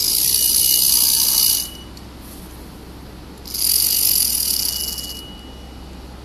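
Wind-up tin toy's clockwork motor whirring in two bursts of about a second and a half each, a steady high whir that stops short each time.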